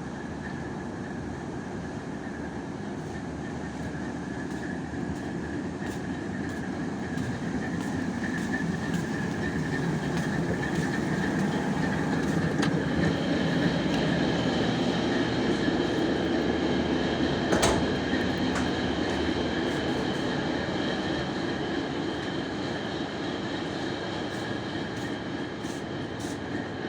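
Heavy machinery running with a steady drone and a constant high whine. It swells louder over several seconds to peak about two-thirds through, then eases off, with a single sharp click near the peak.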